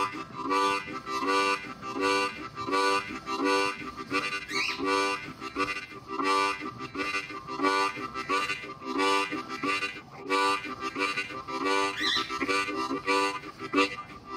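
Harmonica playing a chugging train rhythm: short chords pulsing steadily, about two to three a second, with a couple of brief rising high squeals along the way.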